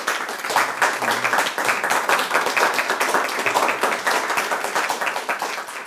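Small audience applauding at the end of a talk: dense, steady clapping that thins out slightly near the end.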